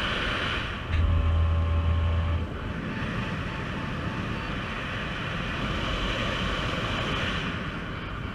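Airflow rushing over the action camera's microphone in paraglider flight, with a heavy low buffeting gust about a second in that fades after a second and a half. Faint, evenly spaced short beeps sound through the wind in the second half.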